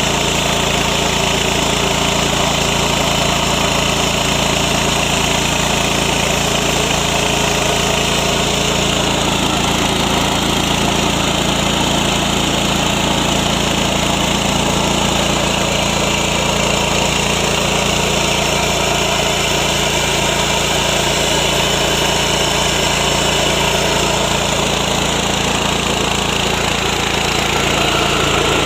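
Yasuka 3-in-1 mini rice mill running steadily, driven by its 7–7.5 HP MGX 210 engine.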